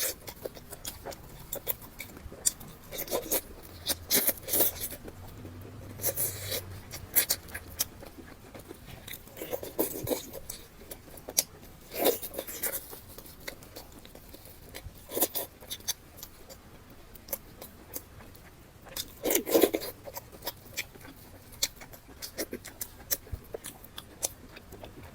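Close-up eating sounds: a person chewing and gnawing salt-baked chicken, with irregular mouth clicks, smacks and small crunches, and louder bites every few seconds.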